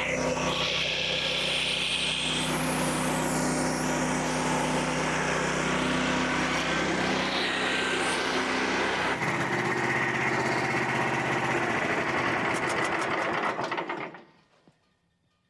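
Gasoline engine of a portable bandsaw sawmill running steadily with the band blade, its low note changing about nine seconds in; the sound drops away sharply near the end.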